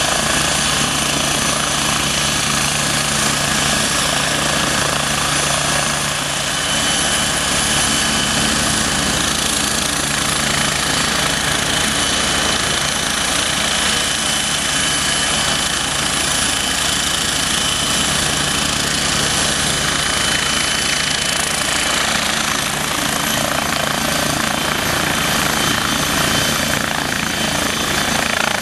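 MBB Bo 105 twin-turbine helicopter running: loud, steady rotor and engine noise with a constant high turbine whine over it.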